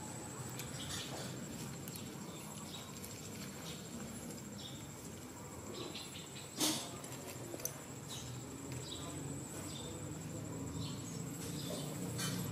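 An insect, cricket-like, trilling steadily on one high pitch, with faint rustling and handling noise. A single sharp click a little past halfway is the loudest sound, followed by a smaller click about a second later.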